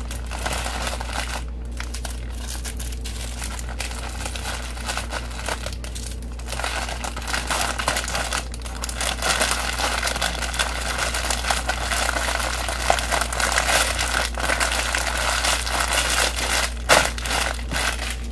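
Small plastic bags of diamond-painting drills crinkling as they are handled and sorted, the rustling getting busier about six seconds in, over a steady low hum.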